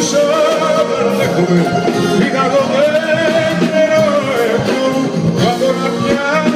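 Live amplified Greek popular song: a male singer sings into a microphone over band accompaniment, with long held and gliding notes.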